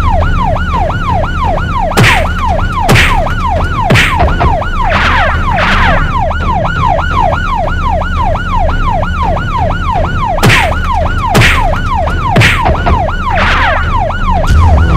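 Cartoon police siren wailing in quick, even up-and-down sweeps, about two and a half a second, over a low steady rumble. Sharp hits cut in about once a second, in two runs.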